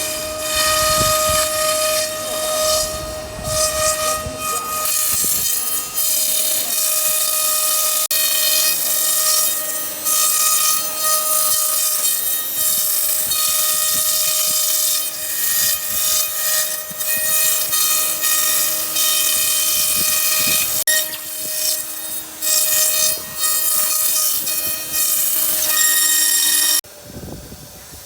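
CNC router spindle whining at a steady pitch over the hiss of the bit cutting foam, the level dipping and rising as the cut moves. It cuts off suddenly near the end.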